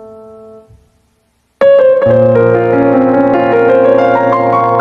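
Background piano music: a held chord dies away, there is about a second of silence, and then new piano music starts about a second and a half in with a struck chord and sustained notes.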